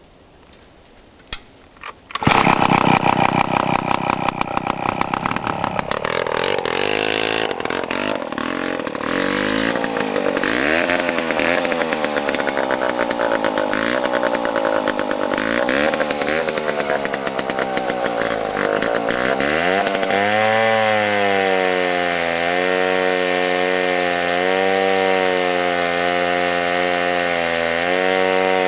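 1953 Monark Silver King two-stroke chainsaw engine catching about two seconds in and running, its speed rising and falling unevenly at first, then held high and fairly steady with a slight waver for the last several seconds.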